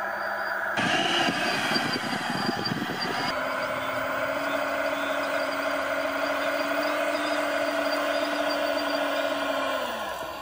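RC scale model O&K L25 wheel loader pushing its bucket into soil, its drive running steadily under load. A gritty scraping of soil and stones comes in the first few seconds. The drive's steady whine falls away near the end as the loader stops.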